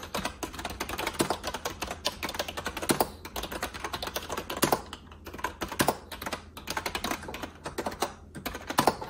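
Typing on an Actto B305 retro keyboard with round typewriter-style keycaps: a continuous run of lively key clicks at an uneven rhythm, with a few short pauses. The keyboard gives a feel like a mechanical keyboard.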